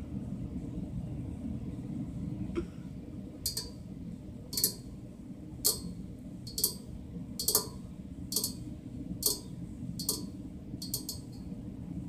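Fingernails clicking: about ten sharp, high clicks, roughly one a second, beginning a few seconds in, over a steady low rumble.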